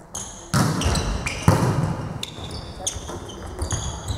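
Volleyball rally on an indoor court: the ball is served and struck, with a sharp hit about a second and a half in, amid many short high squeaks of players' shoes on the hall floor and their footsteps.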